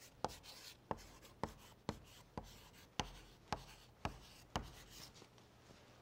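Chalk writing a word on a blackboard: about ten sharp taps, each with a short scrape, roughly two a second, stopping about five seconds in.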